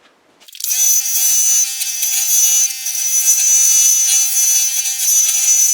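Scroll saw running and cutting 3/4-inch red oak, a steady high-pitched whine over a hiss that starts about half a second in.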